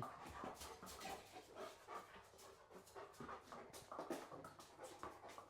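Dog panting faintly, a string of short irregular breaths.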